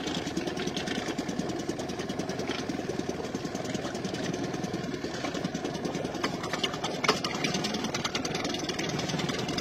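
A small engine idling steadily, with a fast, even chugging pulse.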